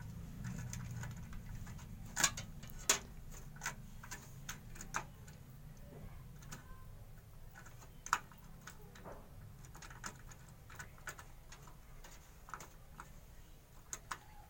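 Irregular plastic clicks and taps of a CPU cooler's push-pin fasteners being set into the motherboard's four mounting holes and pressed to lock, the two sharpest about two and three seconds in, over a steady low hum.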